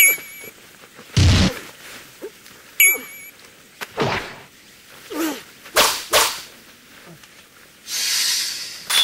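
Sword-fight sound effects: a quick series of sharp sword swishes and hits, about one a second. Metallic blade clangs ring out at the start and again about three seconds in.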